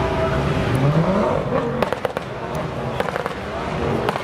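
A tuned car's engine revs up, then its exhaust pops and bangs in a string of sharp cracks, in clusters of two or three, over the next couple of seconds.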